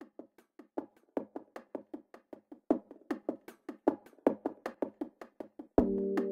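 Instrumental intro of a pop song: a quick, even run of short, clipped pitched notes, about five a second. Near the end, sustained held chord tones come in underneath.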